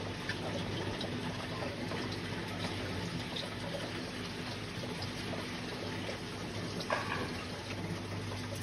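Aquarium filter water running and splashing steadily, with a low steady hum underneath and one brief louder splash about seven seconds in.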